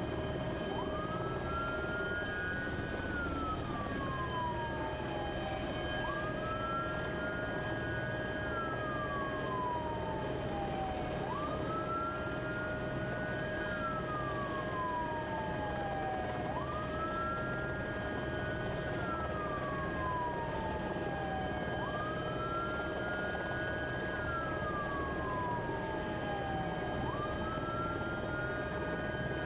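Siren wailing in a slow, even cycle: each wail rises quickly, holds briefly at the top, then slides slowly down, about once every five seconds, over a steady hum.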